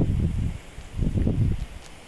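Wind buffeting the microphone in two low rumbling gusts, the second dying away about halfway through, with leaves rustling.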